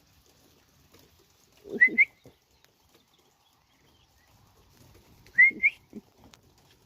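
A person whistling a short call of two quick rising notes to call cats in, given twice: about two seconds in and again about five and a half seconds in.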